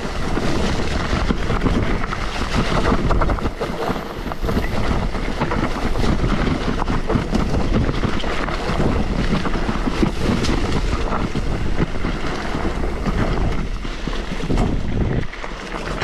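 Wind buffeting the microphone while riding a Crust Evasion bicycle over rough ground, with a steady rattling crunch from the tyres and bike.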